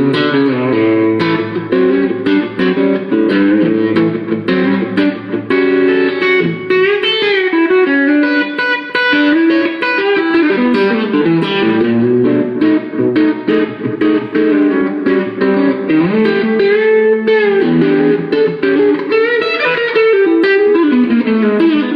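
Knaggs electric guitar played through a Gizmoaudio Sawmill Jr drive pedal into a Dr Z Maserati tube amp: a busy lead line of quickly picked notes with several string bends.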